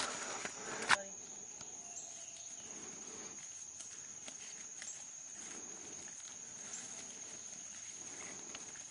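A steady high-pitched insect drone, cricket-like, with faint footsteps through leaf litter and undergrowth. In the first second there is louder rustling and brushing through brush, ending in a sharp click.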